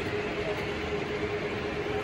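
O gauge three-rail model train rolling past on metal track, with a steady rumble of wheels and a constant hum.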